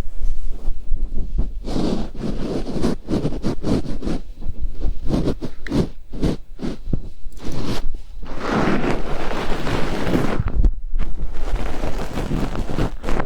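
Ear-cleaning ASMR tools rubbing and scratching right on the microphone in an irregular run of close scraping and rustling strokes, densest about two-thirds of the way in.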